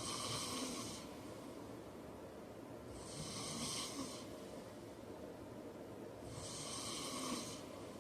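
A man snoring in his sleep: three airy, rasping breaths, each about a second long and about three seconds apart.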